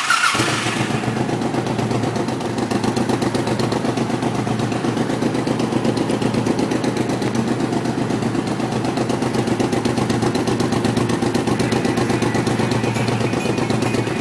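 Honda VTX 1800's big V-twin engine firing up and then idling steadily, with a rapid, even exhaust pulse.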